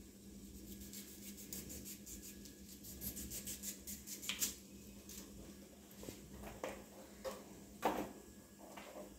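Kitchen knife slicing flesh off fibrous pineapple peel pieces, a run of quick crisp cuts through the first half. A few knocks of the knife and pineapple pieces on a wooden cutting board follow in the second half, over a faint steady low hum.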